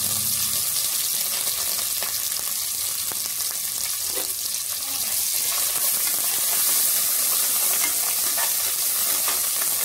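Onions, cashews and coriander leaves sizzling in hot oil in an aluminium pressure cooker, a steady hiss that grows a little louder about six seconds in. Near the end a spoon stirs and scrapes against the pan, adding a few light clicks.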